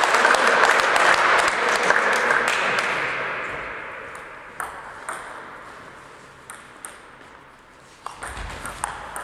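Applause, a dense patter of clapping that fades away over several seconds. A low thump and a few scattered knocks come near the end.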